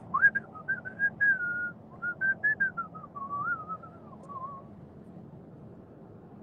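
A person whistling a short, wandering tune in broken phrases that stops about four and a half seconds in, over steady low road noise inside a moving car.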